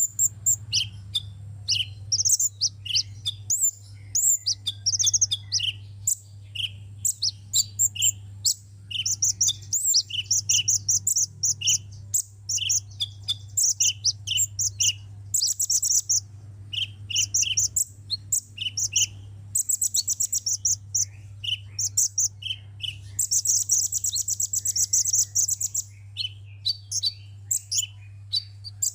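Sunbird song: a rapid run of high, thin chirps and twitters, broken by several fast buzzy trills, with a steady low hum underneath.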